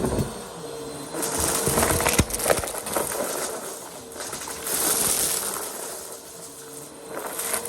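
Vacuum cleaner running with a steady motor whine. The rushing air swells twice as it is worked back and forth, with scattered sharp clicks.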